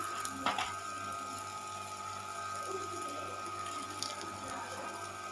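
Oil sizzling under a stuffed paratha cooking on a hot tawa, a steady hiss with one small click about half a second in.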